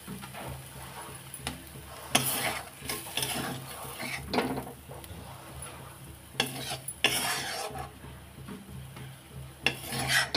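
Spatula scraping cooked, dry saag across a metal kadhai as it is scooped out: several separate scraping strokes a second or two apart, over a steady low hum.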